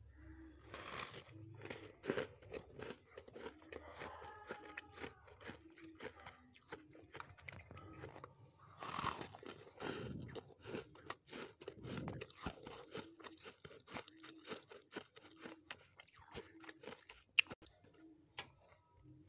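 Freezer frost being bitten and chewed: an irregular run of crisp crunches, with heavier bites about a second in and again around the middle, and one sharp click near the end.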